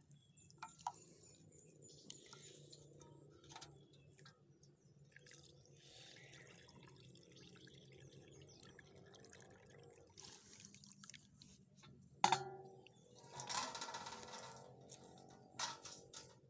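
Chopped bitter gourd squeezed by hand, its juice dripping faintly into a metal basin, pressed to draw out the bitterness. About twelve seconds in comes a sharp knock, then a short splash of liquid.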